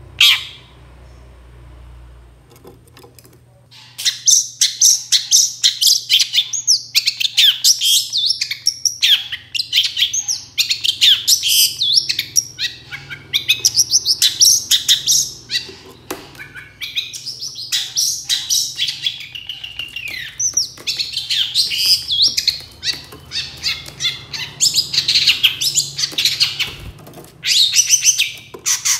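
Long-tailed shrike (cendet) singing: a short sharp call at the start, then from about four seconds in a fast, unbroken chattering song of high notes that runs on with only brief pauses.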